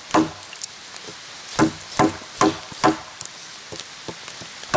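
A wooden baton striking the spine of a Solognac Sika 130 Grip knife, driving the blade across the grain into a log (flat batoning). Sharp woody knocks: one just after the start, then after a pause four about half a second apart, and another at the very end.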